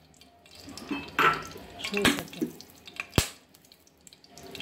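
Brief kitchen handling noises: two sharp clicks about a second apart, with short bursts of rustling or scraping noise around them.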